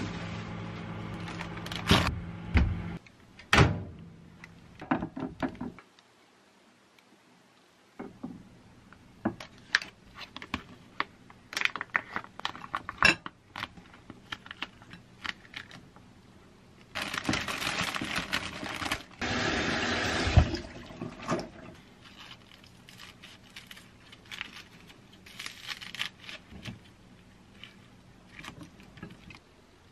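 Microwave oven running with a steady hum that stops about three seconds in. Then hands-on food-prep sounds: clicks and handling of plastic packaging, two loud stretches of crinkling plastic in the middle, and light snips of kitchen scissors cutting lettuce near the end.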